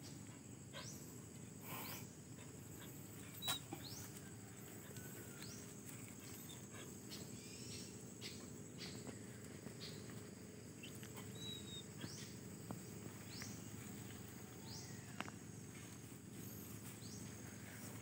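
Faint steady high-pitched insect chirring, with scattered short sharp ticks and rustles, the sharpest about three and a half seconds in.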